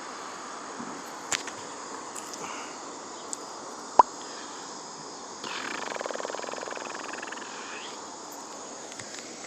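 Vintage spincast fishing reel being cranked: a fast ticking whir for about two and a half seconds, starting about halfway in. Behind it a steady chorus of insects, with one sharp click a little before the reeling.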